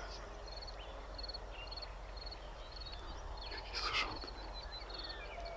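Field ambience of an insect chirping in short, evenly repeated pulsed bursts, with a few scattered bird chirps. A brief louder rustle comes about four seconds in.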